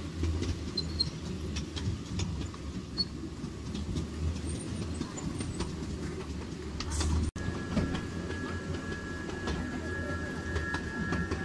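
Ride-on 1/6-scale miniature train rolling along its track, heard from on board: a steady low rumble of the wheels with scattered clicks. A steady high-pitched ring joins in about seven seconds in and holds to the end.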